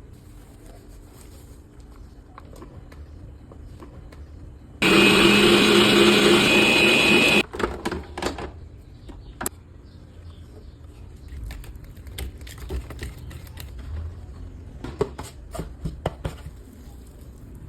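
A small electric kitchen appliance motor runs loudly for about two and a half seconds, starting and stopping abruptly. Scattered clicks and knocks of utensils or containers come before and after it.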